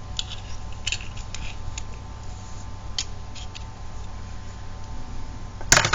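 Flat ribbon cable and a plastic IDC connector being handled and fitted together: scattered light clicks and rustles, then a louder, sharper clatter of clicks near the end.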